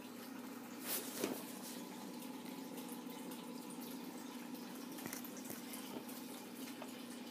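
Small aquarium's water circulating with a steady trickle and a constant low hum, as a tank filter runs. Two brief knocks about a second in.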